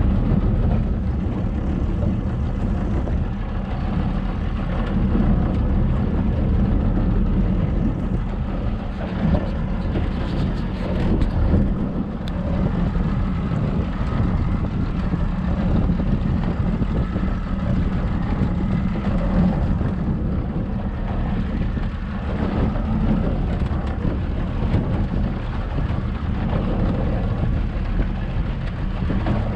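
Small motorboat under way: its engine running steadily, with water rushing along the hull and wind on the microphone.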